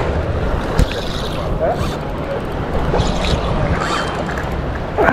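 Steady rushing noise of river water, with one sharp knock a little under a second in.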